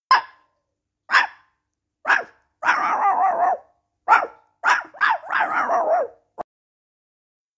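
A person doing an impression of a small terrier barking: three sharp single yaps about a second apart, then quicker runs of yapping with single barks between them.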